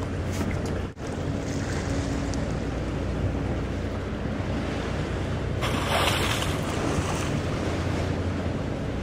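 Boat under way: water rushing along the hull, with wind buffeting the microphone and a faint steady engine hum underneath. A louder hissing rush of water or wind lasts about a second and a half, starting a little before the six-second mark.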